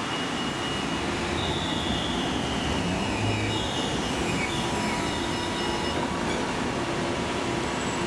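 Alstom Citadis tram pulling in and slowing to a stop: a steady rolling rumble on the rails with a high whine that falls in pitch as it slows, then a steady high hum near the end.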